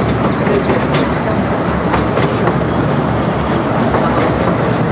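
15-inch gauge miniature train's open passenger carriages running along the track: a steady rumble of wheels on rail with scattered clicks and a few brief high squeaks in the first second.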